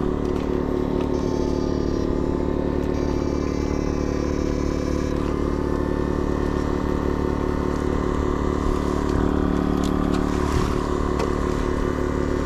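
Steady machine drone at a fixed pitch, unchanging in level. A thin high whine cuts in twice during the first half.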